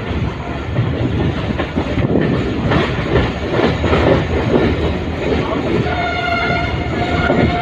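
Passenger train running, wheels clattering over the rail joints, heard from aboard. A steady pitched tone joins about six seconds in and holds to the end.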